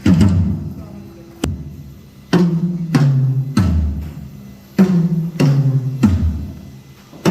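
Drum kit struck one drum at a time, with uneven gaps, as in a sound check: about eight low, booming hits, each ringing briefly and fading.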